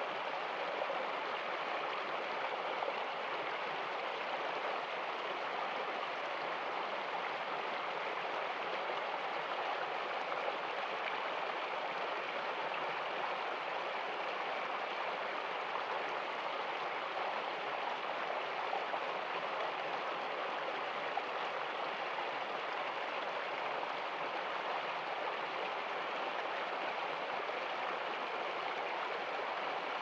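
Small shallow stream flowing and babbling over rocks in a steady, even rush, with water spilling over a snow-covered rock.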